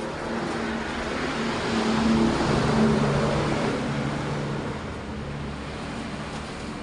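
A motor vehicle passing by, its engine and road noise growing louder to a peak a couple of seconds in, then fading.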